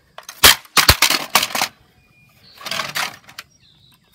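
Plastic parts of a broken radio/stereo knocking and clattering as it is handled and pried apart: several sharp knocks in the first second and a half, then a softer rustle about three seconds in.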